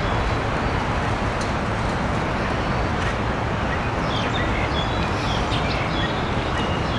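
Steady hum of city traffic in the background, with birds chirping briefly between about four and six seconds in.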